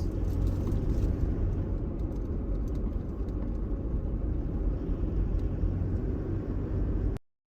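Steady low rumble of a motor vehicle on the road. It starts abruptly and cuts off about seven seconds in.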